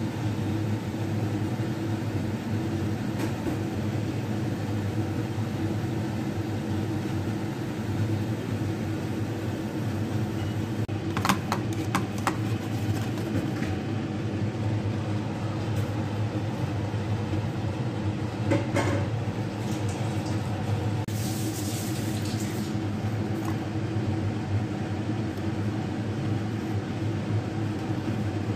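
Steady machine hum throughout, with a few light clicks and taps, twice in small clusters, as the wrapper is handled in the pan, and a brief soft hiss a little past two-thirds of the way through.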